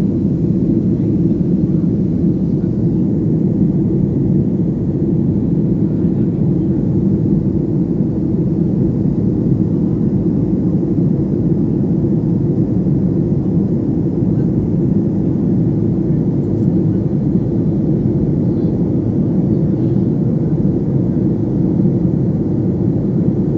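Steady cabin noise of a Boeing 737 airliner in flight, heard from inside the cabin: an even, unchanging low rumble of engines and airflow.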